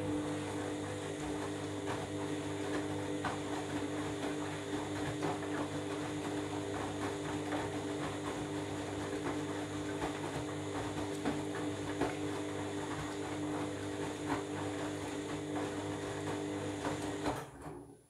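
Candy front-loading washing machine's motor turning the drum through a wash tumble: a steady motor hum with wet clothes and water sloshing and splashing inside the drum. It stops suddenly near the end as the drum pauses.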